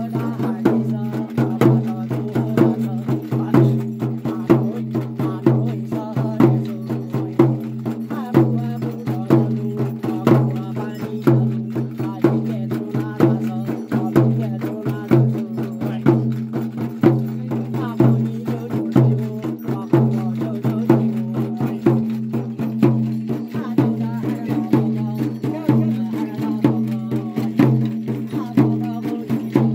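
Shaman's dhyangro frame drums beaten with curved sticks in a fast, steady rhythm, with louder accents about once a second, over a low steady drone. A man chants over the drumming.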